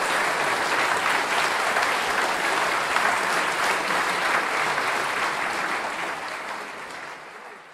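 Audience applauding steadily, fading out over the last couple of seconds.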